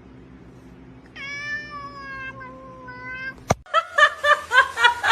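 A cat's single long meow, held for about two seconds and sinking slightly in pitch. A sharp click follows, then a quick run of short repeated pitched calls, about four a second.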